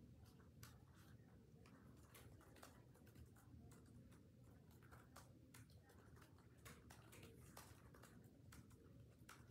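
Near silence: room tone with a low hum and faint, irregular clicks and taps.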